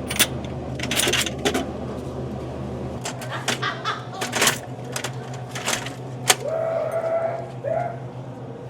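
Clicks, knocks and clatter of products being handled at a vending machine during an inventory check, over a steady low electrical hum. A short, high, wavering tone comes in about seven seconds in.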